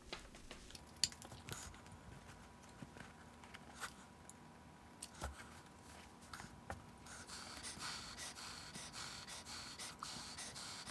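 Faint handling sounds of a foam puppet head and its cardboard mouth plate being worked and pressed together by hand: scattered small clicks and taps, the sharpest about a second in. A soft rustling comes in about seven seconds in.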